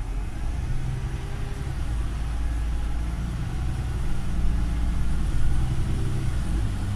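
Volvo MCV Evora single-deck bus heard from inside the cabin near the rear: the diesel engine and running gear make a steady low drone that grows a little louder around four to five seconds in.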